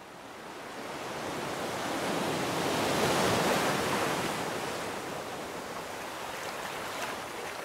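Rushing surf noise that fades in, swells to its loudest about three seconds in, then eases to a steady rush.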